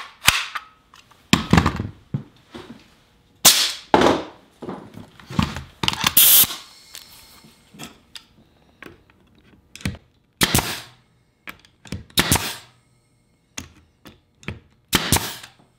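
Bostitch 18-gauge pneumatic brad nailer firing 1¼-inch nails into wood: several sharp cracks spaced a second or more apart. A short burst of air hiss about six seconds in as the air hose is coupled to the nailer.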